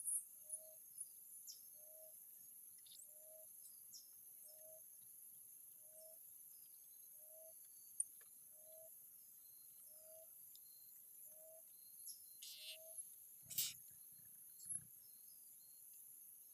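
Steady high insect chorus with scattered sharp, high chirps typical of blue-crowned hanging parrots, over a low single note repeated about one and a half times a second that stops about three-quarters through. Near the end comes a short rustle and a knock.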